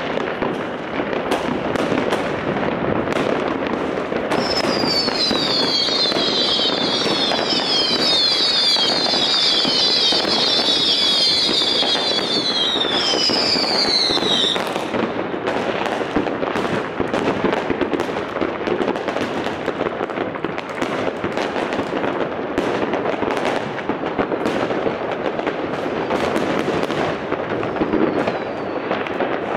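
Dense, continuous crackling and popping of many fireworks and firecrackers going off at once. From about four seconds in to about fourteen, a high whistle keeps sliding down in pitch over and over, ending with one longer falling whistle.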